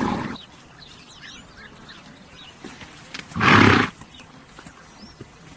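Horse snorting: a short blow through the nostrils right at the start, then a louder one about three and a half seconds in. Faint birdsong runs in the background.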